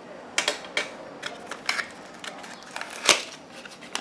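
Clear plastic wrap crinkling and crackling as it is peeled off a small cardboard makeup box, a run of sharp irregular crackles with the loudest about three seconds in.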